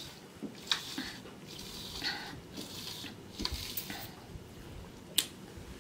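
Soda sipped through a plastic straw from a can: soft sucking and swallowing sounds with a few small clicks.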